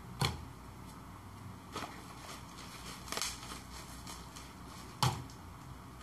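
Bubble wrap and plastic packaging crinkling and rustling as a package is unwrapped by hand, with a few sharp crackles spread through.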